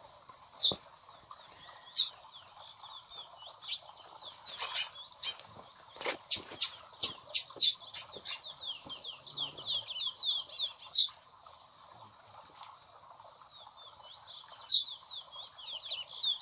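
Curiós (chestnut-bellied seed finches) calling: loud single sharp chips every few seconds, with a busy run of quick falling chirps in the middle. A steady thin high-pitched tone runs underneath.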